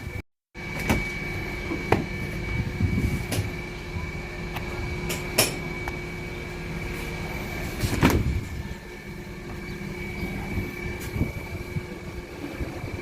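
A steady hum with a high tone and a low tone, broken by scattered knocks and clunks, the loudest about eight seconds in.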